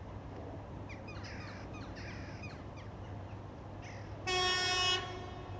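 TEP70BS diesel locomotive's horn sounding one short blast about four seconds in: a single steady note lasting under a second that rings on briefly after it stops. Birds chirp a few times in the first half.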